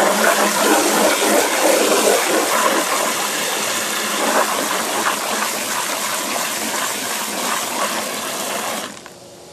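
Water from a garden hose spray nozzle gushing steadily into a 5-gallon bucket of vinegar, filling it; the flow shuts off abruptly near the end.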